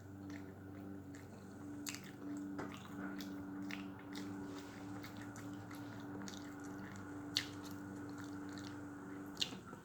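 Close-miked chewing and lip smacking of a crispy Cheetos-crusted chicken sandwich, with scattered sharp mouth clicks, two of the louder ones in the second half. A steady low hum runs underneath.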